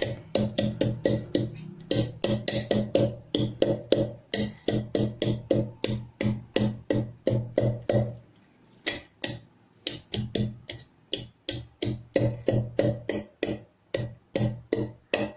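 Whole spices and garlic (cinnamon, cloves, cardamom, peppercorns) being pounded to a coarse powder with a pestle in a mortar. The strikes come about three or four a second, each with a short ring, and pause briefly about halfway.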